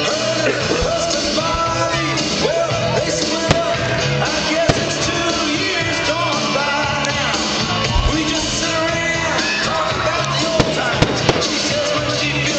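Loud music with a singing voice plays throughout, and sharp firework bangs cut through it several times.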